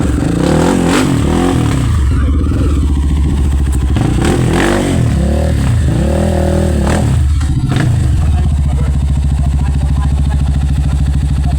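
A vehicle engine labouring up a steep hill, its revs rising and falling several times over the first eight seconds or so, then running steadily.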